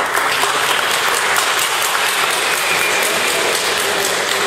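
Crowd applauding: many people clapping steadily together.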